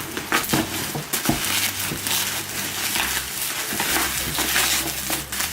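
Packing wrap rustling and crinkling continuously, with many short crackles, as a wrapped ceramic mug is unwrapped by hand.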